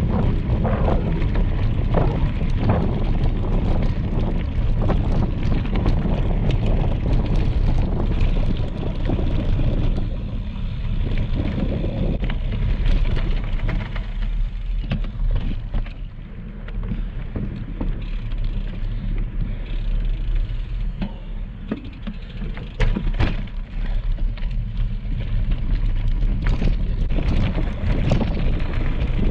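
Wind rumbling on the microphone of a handlebar-mounted action camera, over the crunch and rattle of a bicycle rolling on a gravel trail. Short knocks from bumps in the surface come now and then, with a cluster a little over two-thirds through.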